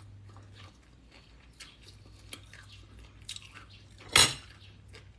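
Someone eating spicy papaya salad (som tam) with their fingers from a steel plate: soft chewing and small scattered clicks of food and fingers against the plate, with one loud, short noise about four seconds in.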